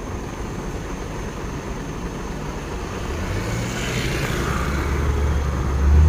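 Passing road traffic: a vehicle engine approaching and growing steadily louder over the last few seconds, over a constant low rumble.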